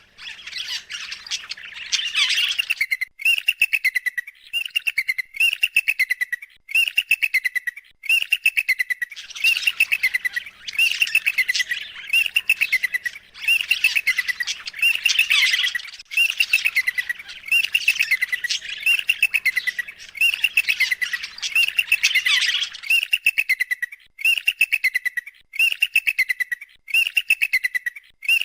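Bird calls: at first an irregular jumble of squawks, then from about three seconds in a steady run of rapid chattering calls, roughly one a second, each falling slightly in pitch.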